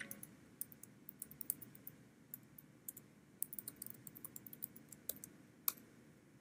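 Faint, irregular clicking of computer keyboard keys, several taps a second, with one sharper click a little past the middle.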